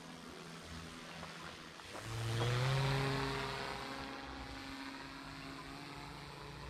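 Brushless electric motor and propeller of an RC paramotor, running as a steady hum. About two seconds in it swells to a louder whine whose pitch rises and then holds, and it fades away over the following seconds.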